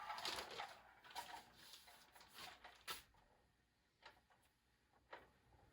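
Faint rustling with a few light taps and knocks, the sharpest about three, four and five seconds in.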